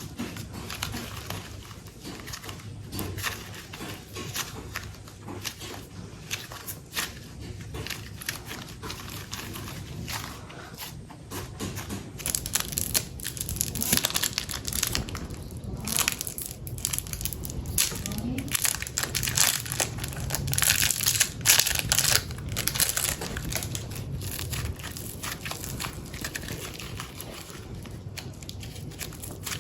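Close-miked hands squeezing and kneading soft super light clay: a run of small crackling, squishing clicks that grows busier and louder around the middle, then settles again.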